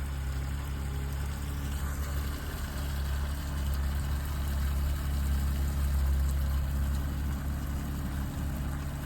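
Site dumper's engine idling steadily.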